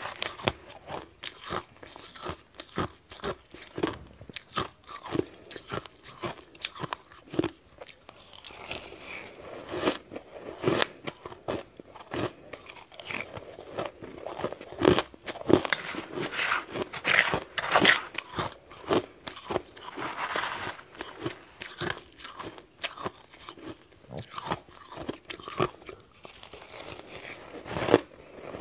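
Shaved ice being crunched and chewed in the mouth, close-miked: a rapid, uneven run of sharp, crackly crunches as each spoonful is bitten down.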